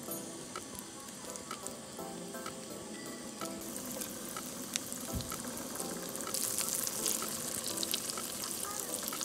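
Butter sizzling and spitting on a hot griddle pan over a portable gas stove as hot dog buns toast in it, with scattered sharp pops. The sizzle grows louder about a third of the way in and louder again past the middle.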